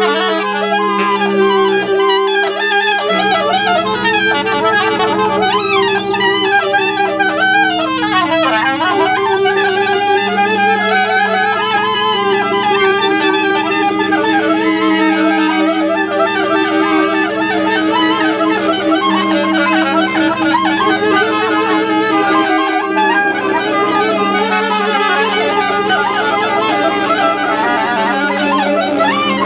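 Saxophone ensemble of baritone, tenor, alto and soprano saxophones playing together, holding long overlapping low drones while higher lines waver and bend above them.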